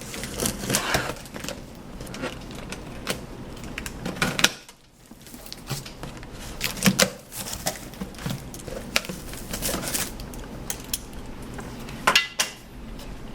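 A boxed wet/dry vacuum being unpacked: cardboard and packing handled, with irregular knocks, clicks and rustling, and a brief lull about four and a half seconds in.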